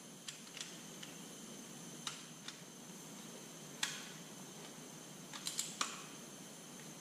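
Sharp metal clicks, irregularly spaced, from a long-handled wrench working the front-cover bolts on a Detroit 3-53 diesel block, the loudest about four seconds in and a quick cluster near the end, over a steady shop hiss.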